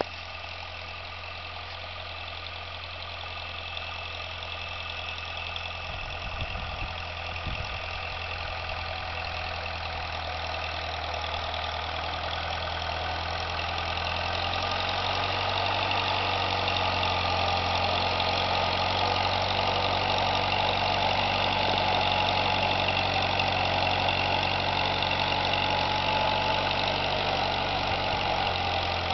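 1952 Massey-Harris Pony's four-cylinder Continental flathead engine running at a steady speed as the tractor works through snow. It grows gradually louder as the tractor approaches, then holds steady from about halfway on.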